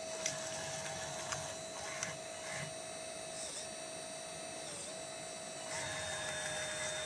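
Electric motors and gear drives of a 1/12-scale RC Liebherr 636 track loader whining as it tracks and works its bucket. The whine holds a steady pitch that sags briefly twice in the middle, as if under load. A few small clicks and knocks come in the first two seconds, and the whine grows fuller and louder near the end.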